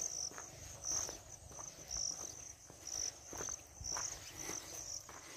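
Footsteps on a dirt road, about two a second, under high, pulsing insect chirping.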